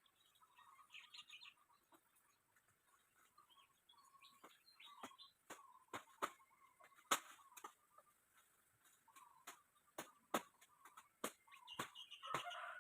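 Faint chicken clucks and bird chirps, with scattered sharp clicks throughout, a little louder near the end.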